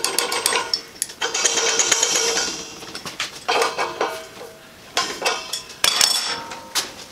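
Metal clinks and scrapes of an adjustable wrench on a brass flowmeter regulator as its nut is tightened onto an argon cylinder valve, a series of sharp knocks with some ringing.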